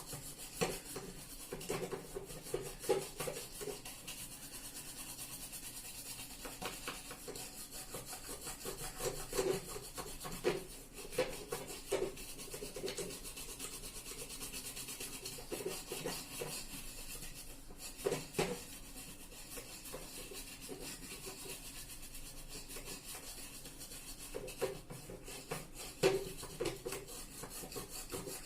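A brush scrubbing a set-top box's circuit board wet with thinner: continuous rapid scratchy rubbing strokes, with a few harder strokes now and then.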